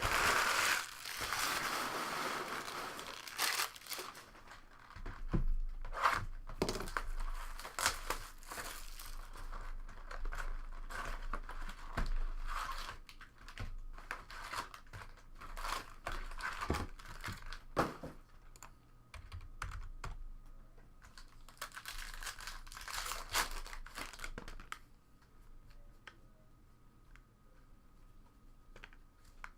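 Sealed card packaging being torn and crinkled open, then trading cards handled and flipped through with many quick clicks and rustles, thinning out near the end.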